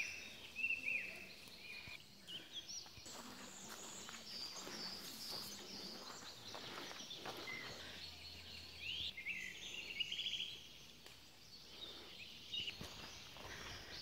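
Woodland birds singing and calling: many short chirps and quick whistled phrases, scattered through, over a faint outdoor hush, with a few soft knocks and rustles.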